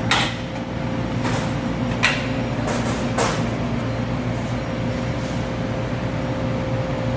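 Amada Aries 245 CNC turret punch press running with a steady hum and a constant tone, with about five short, sharp noises in the first three and a half seconds.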